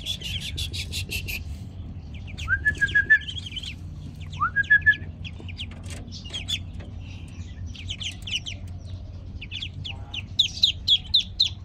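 Newly hatched ducklings peeping in quick, high-pitched runs, loudest in a fast series near the end. A lower call, a short rising note followed by a few quick level notes, comes twice early on.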